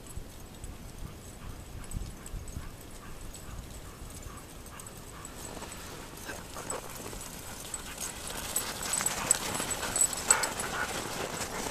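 A sled dog team pulling a dog sled trots up the snow trail: the dogs' footfalls on packed snow with quick clicks and rattles, growing louder over the last few seconds as the team reaches the microphone.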